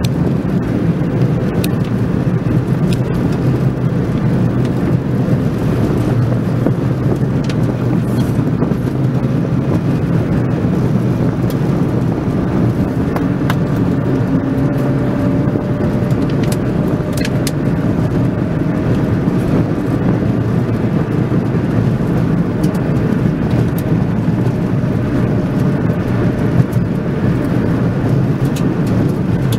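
Car driving at a steady pace on a paved road, heard on board: a continuous rumble of engine and tyre noise with no breaks.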